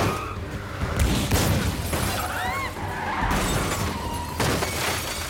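Several heavy crashes with glass shattering, a big impact about a second in and another near the end, with a short screech midway. This is the film's sound of a dragged bank vault and cars smashing through traffic.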